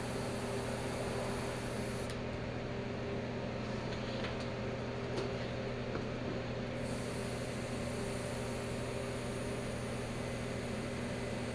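Steady machine hum, like a small electric motor or fan running, with a few faint clicks around the middle.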